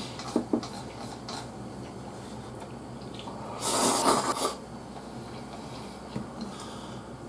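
A person slurping glass noodles in mapo sauce off chopsticks: one loud slurp about four seconds in, with a few light clicks of chopsticks on the dish near the start.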